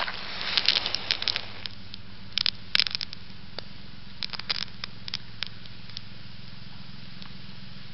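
A bundle of matches wrapped in duct tape struck on its box and flaring up with a hiss for the first second and a half, then burning with scattered crackles and pops that thin out by about six seconds in.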